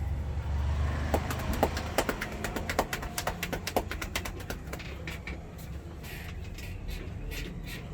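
A quick, irregular run of sharp slaps and clicks from a barber's hands working on a customer during a massage, thinning out about halfway through. Under it is a steady low rumble of street traffic.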